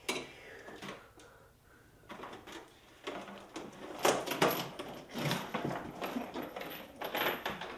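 Heavy NiMH battery pack knocking and scraping against the scooter frame as it is heaved up and out, with a chain rattling; the handling noise grows busier about halfway through, when the pack comes free.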